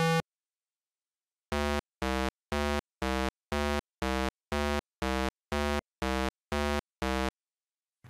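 Synthesized 8-bit engine sound effect for a pixel-art crawler crane: a short buzzy tone pulsing about twice a second, starting about one and a half seconds in.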